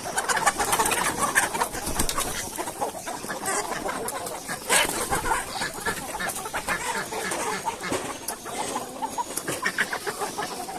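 A flock of chickens clucking, with many short calls overlapping continuously.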